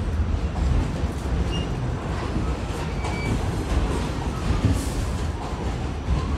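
R46 subway car running along the track: a steady low rumble with a few faint, brief high squeals from the wheels.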